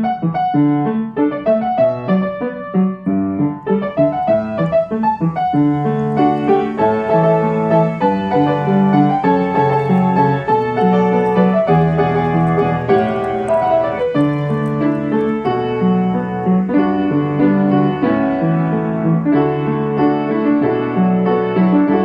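Background piano music: a flowing melody of single notes over chords.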